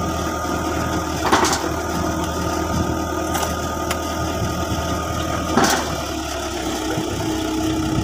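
Komatsu backhoe's diesel engine running steadily under hydraulic work as the boom is raised, with two brief clanks about a second and a half in and again near the six-second mark.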